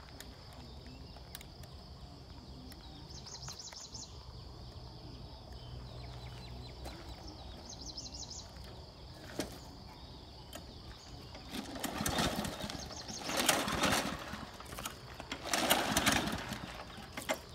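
Bison petrol lawn mower's recoil starter pulled three times, each pull a brief rasping whir of the cord and the engine turning over, without the engine catching.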